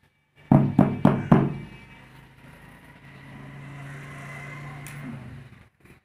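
Four quick knocks as a tile mould filled with wet concrete is rapped to settle the mix, then a steady low hum for about two seconds.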